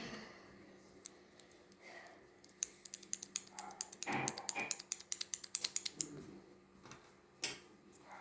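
Typing on a mechanical keyboard with Outemu switches: a fast run of sharp key clicks lasts about three seconds, from a few seconds in, followed by one more loud keystroke near the end.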